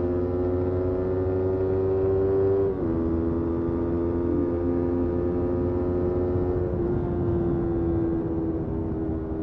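Motorcycle engine pulling under acceleration, its pitch climbing steadily. There are two upshifts, about three seconds in and again near seven seconds, each with a sudden drop in pitch. After the second shift it holds a steady pitch.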